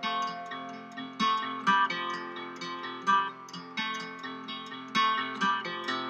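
Background music played on plucked acoustic guitar, a quick run of picked notes over held bass notes.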